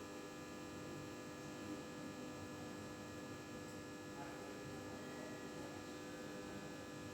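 Old desktop computer running, a steady hum with several fixed whining tones over a low whir.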